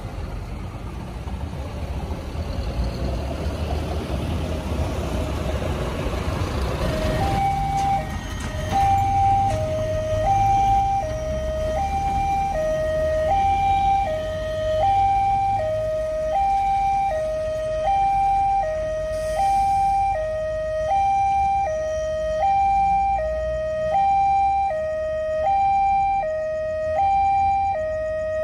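Railway level-crossing warning alarm sounding an electronic two-tone signal, a higher and a lower tone alternating about once a second, starting about seven seconds in as the barrier closes for an approaching train. Before it, road traffic is heard passing over the crossing.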